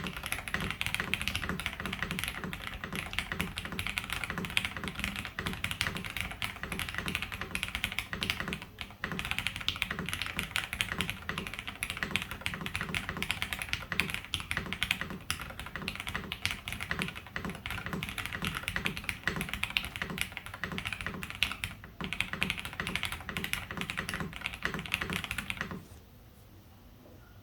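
Continuous typing on a Tiger Lite custom mechanical keyboard with lubed linear switches (Alpaca stems in JWK nylon housings, 70 g springs) on a polycarbonate plate with Poron plate foam. Short breaks come about 9 and 22 seconds in, and the typing stops near the end.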